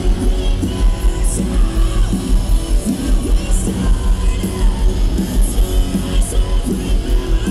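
Post-hardcore band playing live through a concert PA: distorted electric guitars, bass and drums with a singing voice, the heavy bass pulsing under it all.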